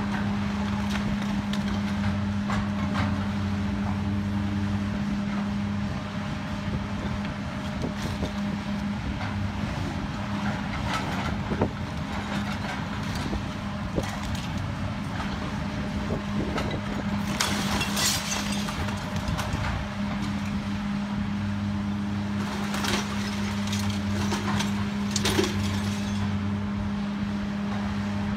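Hydraulic excavator's diesel engine running with a steady hum while its bucket tears into a concrete-block and brick wall. Masonry and debris crash and clatter down at intervals, loudest a little past halfway and again near the end.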